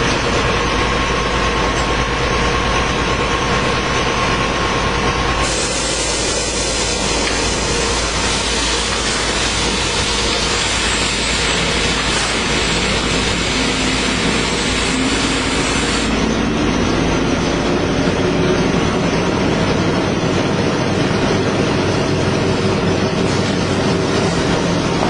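Toilet roll and kitchen towel converting line running: a loud, steady machinery noise with a hum and a few faint steady tones. The hiss turns brighter about five seconds in and drops back about sixteen seconds in.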